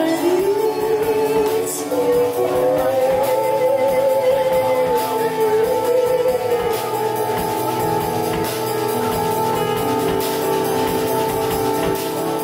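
Female singer crooning a slow, jazzy ballad over a live band. Her voice holds long, gliding notes through the first half or so, then the band's sustained chords carry on.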